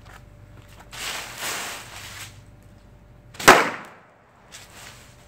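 Homemade paper-tube firecracker packed with antimony(III) sulfide and potassium chlorate: about a second of hissing as it burns, then a single sharp bang about three and a half seconds in as gas pressure bursts the paper container.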